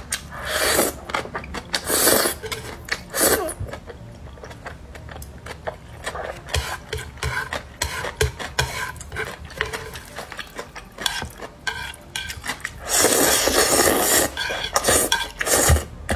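Close-miked eating of black bean sauce noodles: noodles slurped and chewed, with chopsticks scraping and clicking on a wooden plate. Three short slurps come in the first few seconds and a longer, louder burst about thirteen seconds in.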